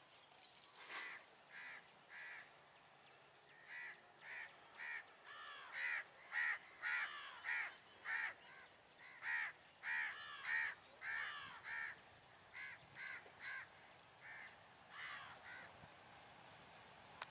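A bird calling over and over: a long series of short, loud calls, about two a second, in runs with brief pauses.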